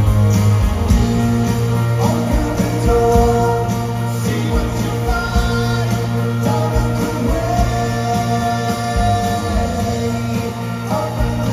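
Live rock band playing a song, with singing over steady, full-band music.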